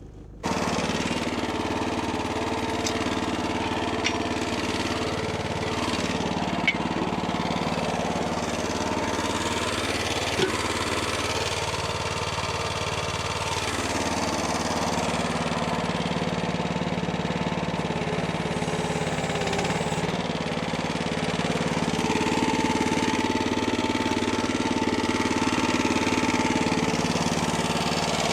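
Small engine running steadily at a fairly even speed, its note shifting slightly a couple of times, with a few faint clicks.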